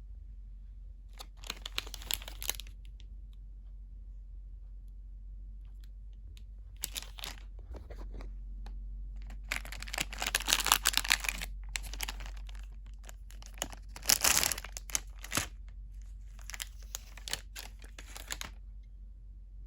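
Plastic packaging crinkling and rustling in several separate bursts as it is handled, the longest a few seconds long near the middle.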